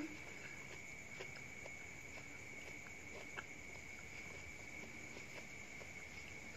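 Faint eating sounds: a metal spoon clicking a few times against a plate as food is scooped, with soft chewing, over a steady high-pitched whine.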